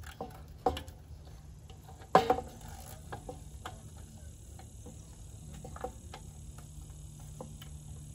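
Ratchet wrench with a 10 mm socket clicking in short runs as the side-case bolts of a Predator 97cc engine are backed out, with two sharp metallic clanks, the louder one about two seconds in.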